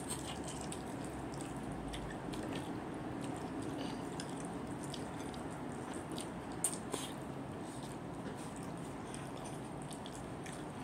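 Soft, wet chewing of food with closed-mouth lip smacks over a steady background hiss, with a couple of sharper clicks about two-thirds of the way through.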